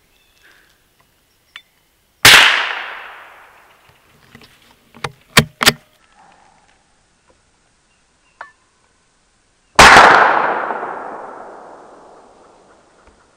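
Two shots from a scoped air rifle about seven and a half seconds apart, each a sharp crack with a long fading tail. Between them come three quick sharp clicks as the rifle is cocked and reloaded.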